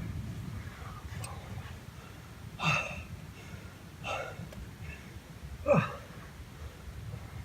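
A climber's short grunts and gasps of effort, three of them a second or two apart, the last sliding down steeply in pitch.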